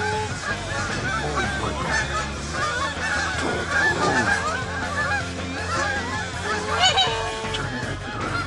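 A flock of Canada geese honking, many calls overlapping throughout.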